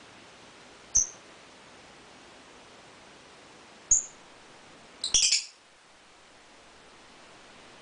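Lovebirds chirping: two single sharp, high chirps about three seconds apart, then a quick burst of several chirps about five seconds in.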